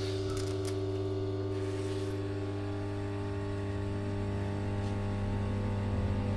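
Electric multiple-unit train standing with its electrics running, a steady hum of several held tones, while a high air hiss dies away within the first two seconds.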